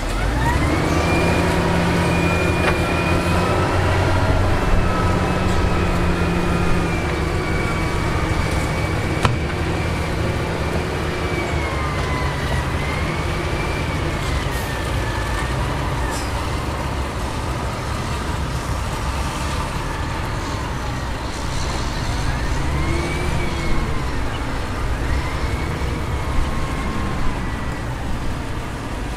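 Heavy construction vehicle's engine running: a steady low rumble, with a thin whine above it that slowly rises and falls in pitch.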